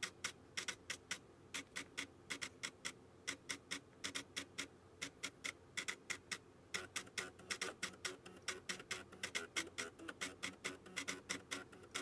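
Floppy disk drive head stepper motors clicking out a fast, steady rhythm, several sharp ticks a second, with only a faint pitched buzz beneath. The clicking thins out briefly about two seconds in and again about five seconds in.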